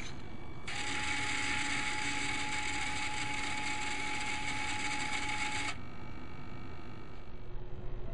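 Small electric motor of a VEX-built simulated grinder, running steadily with a whine from about a second in and cutting off suddenly near six seconds: the machine switched on by the robot's handshake signal.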